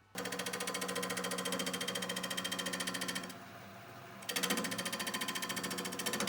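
An electric power tool running with a fast, even rattle in two runs of about three and two seconds, with a short drop in between.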